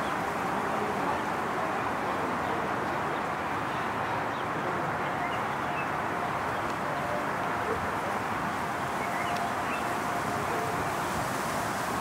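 Steady outdoor background noise, an even hiss-like din with a faint steady hum and a few faint short chirps.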